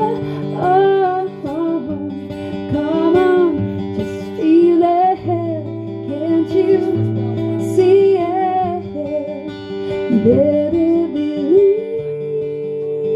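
A woman singing a sustained, gliding melody over a strummed acoustic guitar; her voice stops near the end, leaving the guitar ringing on a held chord.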